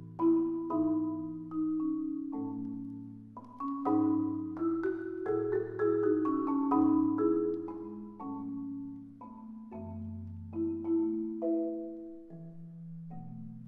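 Solo concert marimba playing a waltz: chords and melody notes struck with mallets over low bass notes that ring on, the notes coming more sparsely near the end.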